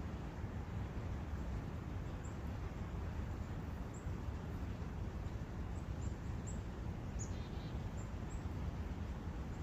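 Forest ambience: a steady low rush of wind and brook water, with short high bird chirps scattered through it every second or so.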